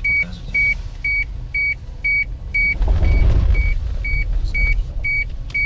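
A car's dashboard warning chime beeping over and over, about twice a second in short even beeps, inside a moving SUV with engine and road rumble that swells around the middle.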